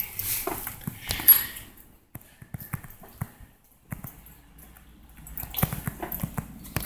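Handling noise from a handheld phone being carried while walking: rustling with scattered knocks, clicks and footsteps. The loudest knock comes about a second and a half in, and there is another busy stretch near the end.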